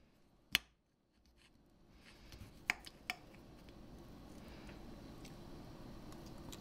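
Fork and knife clicking faintly on a plate while cutting a roasted potato wedge. One sharp click comes about half a second in and two smaller ones around three seconds in.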